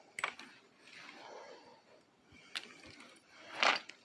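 Scooter wiring connectors and cables being handled: sharp clicks about a quarter second in and again past the middle, soft rustling between them, and a louder short scrape near the end.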